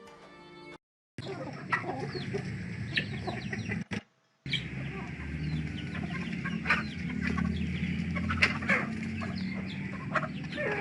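Chickens clucking in a rapid series of short calls over a steady low rumble, with a brief break about four seconds in. Background music ends within the first second.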